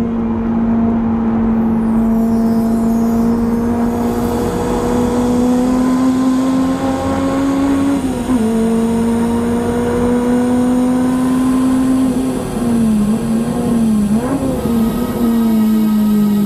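Honda Integra DC5's four-cylinder engine at high revs, heard from inside the cabin, its pitch climbing steadily under full throttle. About halfway through it drops sharply in one quick upshift and climbs again. Later, a run of short dips and rises in pitch, as the car brakes and downshifts into a corner, leaves it running lower.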